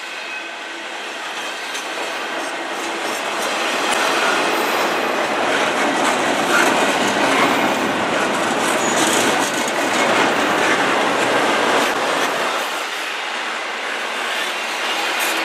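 Double-stack intermodal freight train rolling past at close range: steel wheels of the container well cars rumbling and clattering on the rail. The sound swells louder from about four seconds in and eases again near the end.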